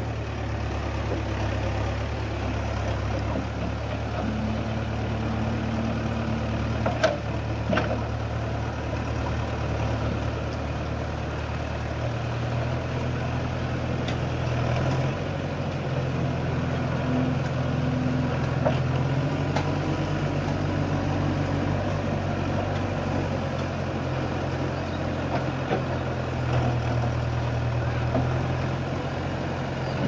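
JCB 3DX backhoe loader's diesel engine running steadily under load. Its note changes about twelve seconds in and again a few seconds later. A couple of faint clicks come about seven and eight seconds in.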